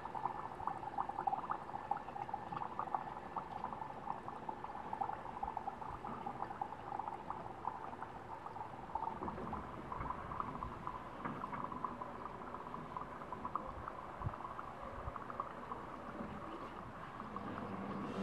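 Zinc dissolving in concentrated nitric acid in a beaker: a steady fizzing crackle of many tiny bubble pops as the reaction gives off nitrogen dioxide gas.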